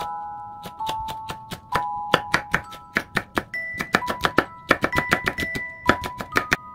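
Chef's knife chopping green chillies on a wooden cutting board: quick knocks of the blade against the board, sparse at first and then several a second from about two seconds in. Background music with bell-like tones plays throughout.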